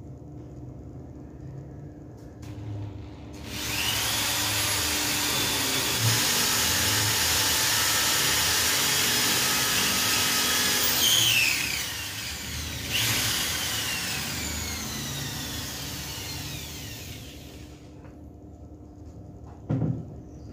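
Corded electric drill starts about three seconds in and bores a hole into the wall for a 6 mm wall plug. It runs steadily for about eight seconds and winds down with a falling whine. It runs again briefly and spins down to a stop. A short knock comes near the end.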